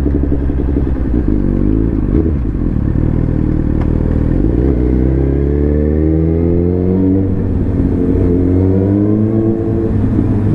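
Suzuki GSX-R1000's inline-four engine running under way, its note climbing steadily in pitch through the middle as the bike accelerates, over a heavy low rumble. It is heard through the GoPro's housing without the external mic attached.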